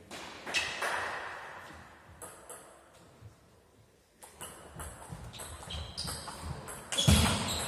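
Table tennis rally: the ball clicks back and forth off the bats and the table, a hit every few tenths of a second, ending in a loud shout near the end. A single sharp knock about half a second in.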